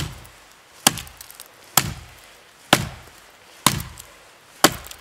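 Gränsfors Bruks Small Forest Axe chopping into the trunk of a standing dead tree: steady blows about once a second, six in all, each a sharp chop with a short low thud after it.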